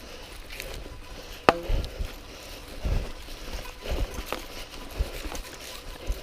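Mountain bike rattling and knocking over rough trail: a sharp clack about a second and a half in, then scattered low thumps as it bumps along.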